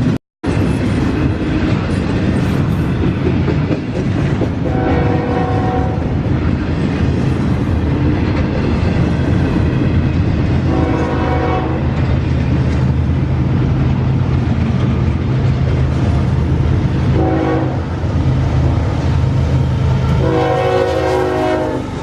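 Diesel locomotive horn sounding four blasts, the last the longest, in the pattern of a grade-crossing signal, over the steady rumble of a passing train.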